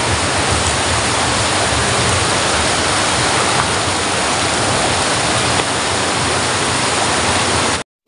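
Steady loud rush of flowing water over rocks, like a stream or small waterfall, cutting off abruptly near the end.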